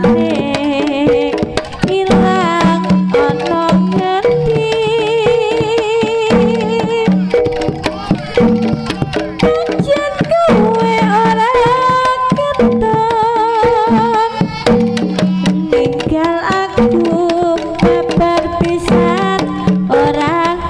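Live Javanese jaranan gamelan music: hand drums play a busy rhythm under repeating tuned gong-chime notes, with a wavering melody line on top.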